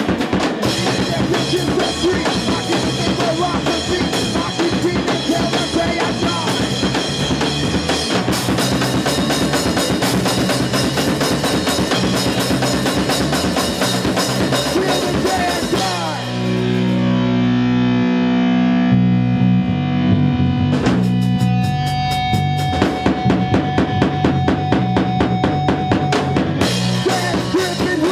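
Live band playing an instrumental passage on electric guitars and a drum kit, the drums and cymbals beating steadily. About halfway through, the drums stop and the guitars hold low sustained chords, then the drums come back in a few seconds later.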